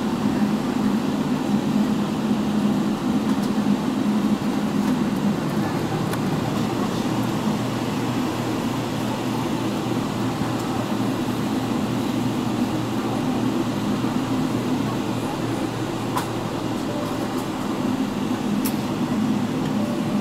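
Cabin noise of a Boeing 777-300ER taxiing after landing, heard from a window seat: a steady low rumble from its GE90 engines and the aircraft rolling, a little louder in the first few seconds. Two faint clicks come near the end.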